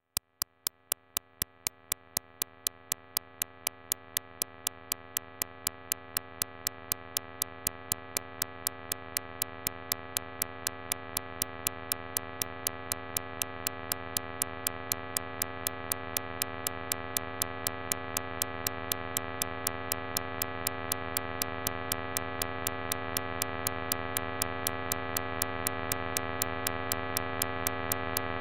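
Electronic drone of many held tones, fading in from nothing and slowly swelling, over a steady ticking of about three ticks a second.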